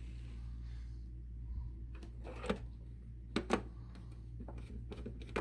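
A few short clicks and light knocks from handling the model boxcar's parts and screwdriver, about two and a half and three and a half seconds in, over a steady low hum.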